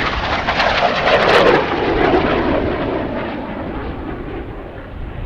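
Jet aircraft flying past: a loud rushing roar that peaks about a second in, its pitch falling as it goes by, then slowly fading.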